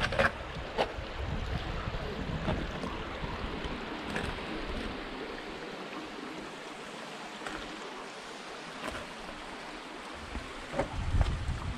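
Small rocky mountain stream babbling steadily, with wind buffeting the microphone in the first few seconds and again near the end.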